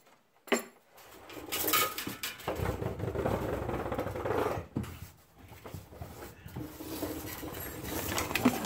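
Rustling and scraping of a person crawling in under a car, with one sharp knock about half a second in.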